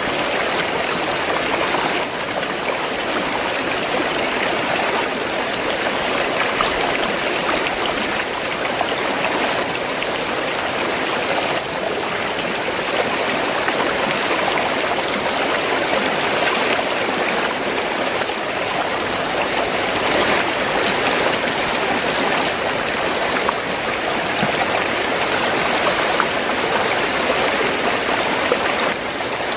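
Fast-flowing stream, water gurgling and rushing steadily.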